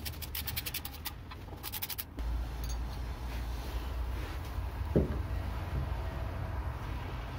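Rapid metallic clicking from a hand tool working a small bolt on the engine's lighting-coil stator, in two short runs. After that a steady low rumble sets in, with a single knock about halfway through.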